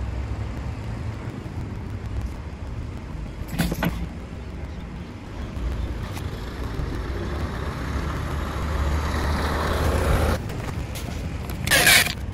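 Steady low rumble, swelling into a rushing noise for a few seconds past the middle. Near the end a cordless drill runs briefly, drilling through the aluminium toerail.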